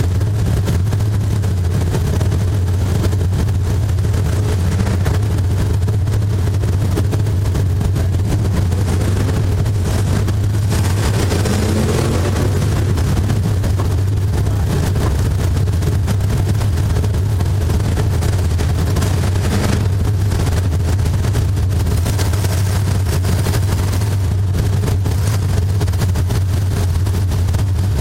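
Race car engine running hard under load, heard loud and distorted from a camera inside the car, with a steady low drone throughout.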